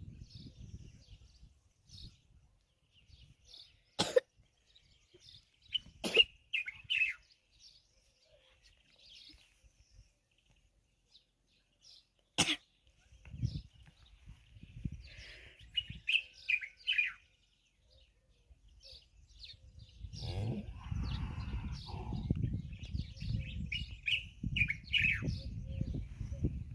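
Small birds chirping and twittering in scattered short high calls. Three sharp knocks cut in, about four, six and twelve seconds in, and a low rumbling sets in over the last several seconds.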